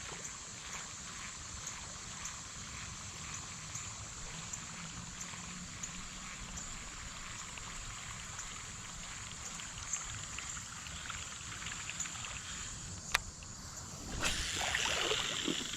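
Creek water running and trickling, with a steady high hiss, one sharp click about thirteen seconds in, and louder splashing of water near the end.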